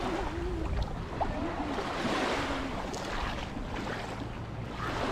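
Small waves washing on a sandy beach, with wind buffeting the microphone.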